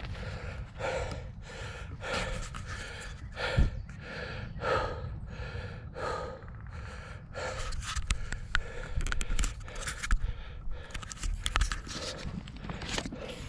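Mountain biker panting hard after riding, rhythmic heavy breaths about twice a second over a low steady rumble.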